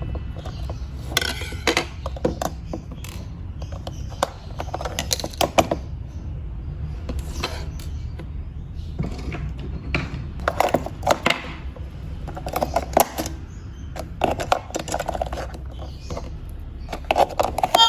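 Irregular clicks, knocks and light rattles of a plastic toy bus being handled, over a steady low hum.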